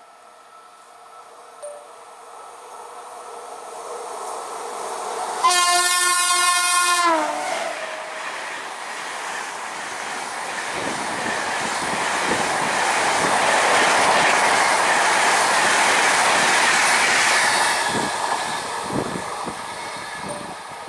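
An express train passing at speed: the locomotive horn sounds for under two seconds, its pitch dropping as it ends, then the coaches rush by with wheels clacking over rail joints, building up and fading away near the end.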